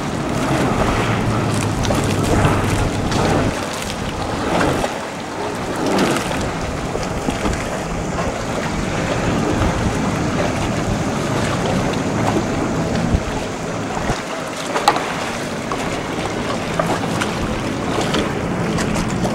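Personal watercraft engine running slowly with a steady low hum, with wind buffeting the microphone.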